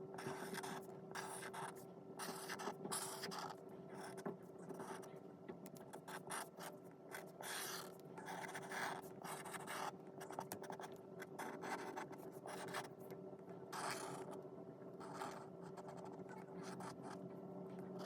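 A pen scratching on paper in short, irregular strokes as a drawing is made, over a faint steady hum.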